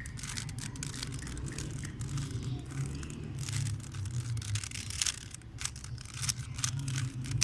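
Rubik's cube being turned quickly, its plastic layers clicking and rattling in rapid irregular turns, over a low steady hum.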